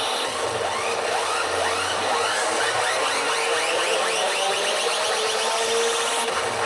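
Pachinko machine P北斗の拳9闘神 playing its electronic sound effects: a quick run of repeated rising sweeps over a steady electronic din.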